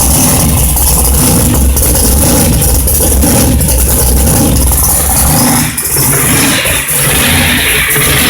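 Supercharged stroked 440 Mopar big-block V8 with a 6-71 blower, running loud through 3.5-inch Dynomax Ultraflow mufflers and side dumps with a deep, steady rumble. A little past five seconds in the note changes, with two brief dips in level.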